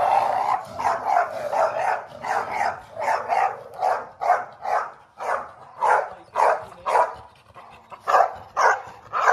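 Pit bull-type dog barking aggressively at another dog, in a steady run of sharp barks at about two a second.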